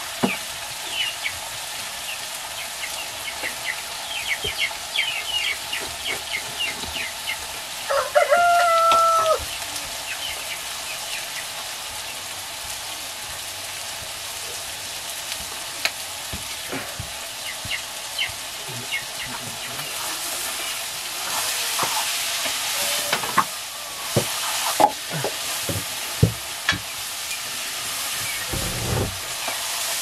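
Chicken frying in a wok over a wood fire, a steady sizzle, with a metal ladle knocking and scraping in the pan as it is stirred. A rooster crows once, about eight seconds in.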